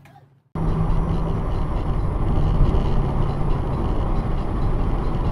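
Steady road and engine noise of a car driving at highway speed, heard from inside the cabin, starting abruptly about half a second in.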